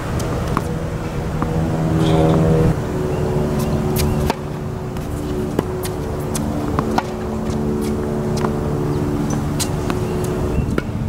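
Tennis ball struck back and forth in a rally, sharp pops every second or so, over a steady humming drone whose pitch shifts in sudden steps.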